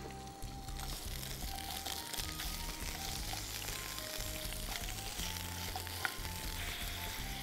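Par-boiled chicken pieces sizzling as they fry in hot oil in a non-stick frying pan, being turned with a wooden spatula; the sizzle builds about a second in, over soft background music.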